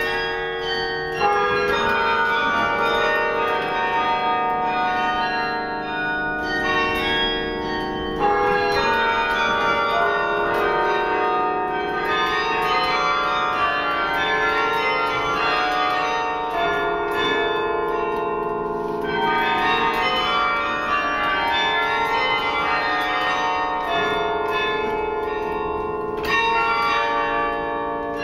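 A 72-bell bronze carillon playing music: bells struck one after another and in chords, each ringing on under the next.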